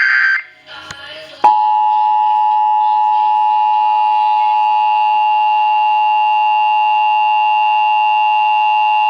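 Emergency Alert System attention signal: a steady two-tone alarm starting sharply about a second and a half in and holding unchanged, after a harsh digital data burst of the EAS header that ends just at the start. It announces an EAS activation, here a flash flood warning.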